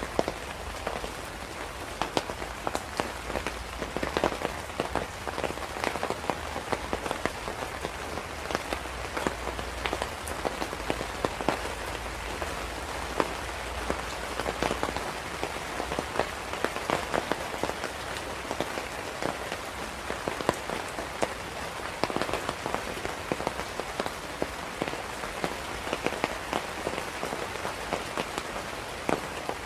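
Steady rain falling, with many sharp individual drops ticking close by over an even hiss.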